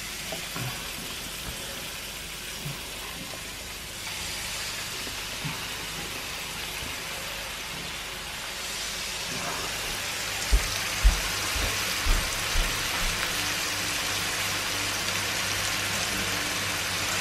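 Stuffed chicken breasts sizzling in hot oil in a frying pan as they are laid in. The sizzle gets louder in steps about four and nine seconds in, with a few dull knocks between ten and thirteen seconds in.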